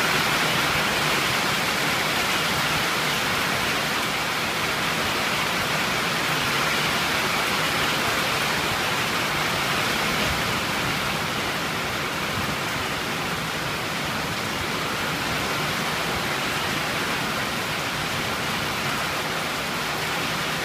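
Steady rain falling during a thunderstorm, an even hiss.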